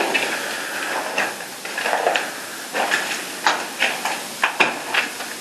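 Footsteps crunching and scuffing over a debris-strewn floor, with irregular sharp clicks over a steady hiss, a cluster of them in the second half.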